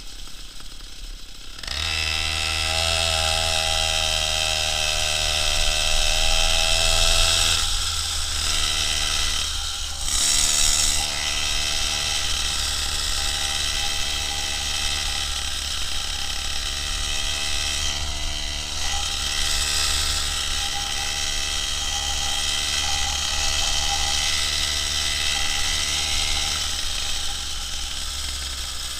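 Two-stroke chainsaw engine of a homemade moped running at high revs under way; it revs up sharply about two seconds in, dips briefly twice near the eight- and ten-second marks, and eases off near the end.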